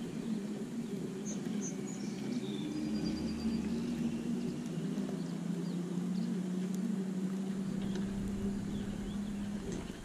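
Low, steady drone of a distant motorboat's outboard engine that drops slightly in pitch about halfway through and stops shortly before the end. A few short, high bird chirps come in the first few seconds.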